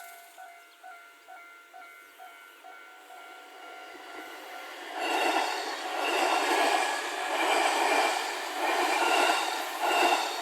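A Japanese level-crossing warning bell dings rapidly, then an E751 series limited express electric train passes over the crossing from about five seconds in. The train's wheels make a loud, rhythmic clatter that swells about once a second as each car goes by.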